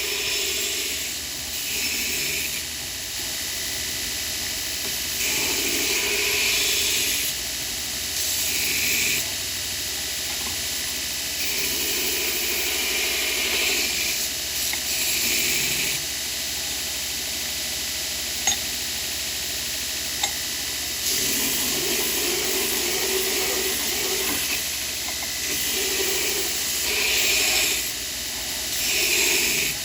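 Steady hissing noise that swells and eases in stretches of a few seconds, with two sharp clicks near the middle.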